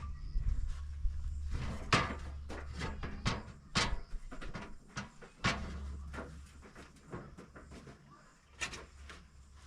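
Irregular knocks, clicks and clatter of objects being handled, over a steady low hum that fades out after about seven seconds.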